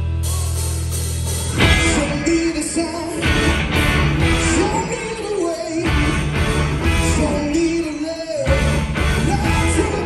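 Live blues-rock band playing electric guitars and drums. The full band comes in about two seconds in, after a held chord.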